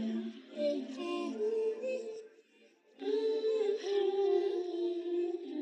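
Quiet closing music of the song: soft, layered sung notes with no bass. It stops for about half a second a little over two seconds in, then a last phrase comes in.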